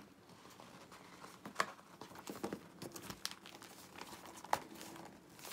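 Rustling and crinkling as a Hobonichi A5 notebook is handled and worked into its pink cover, with a few sharp taps and clicks from the cover and pages.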